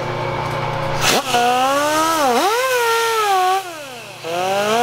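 Motor of a crankshaft polishing machine whining as the crank is belt-polished. The pitch comes up about a second in, dips and recovers, then sags, which fits the load changing as the belt touches the journals. The whine drops out briefly near the end and climbs back up.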